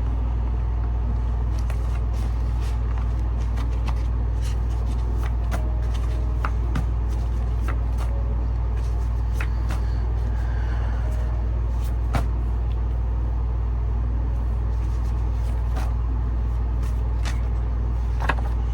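A steady low hum, with many light clicks and taps scattered through it, typical of tarot cards being shuffled and handled.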